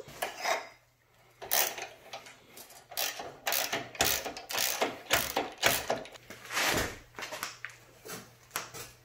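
A 3/8-inch hand ratchet clicking in repeated quick rasping runs as bumper bolts are backed out by hand.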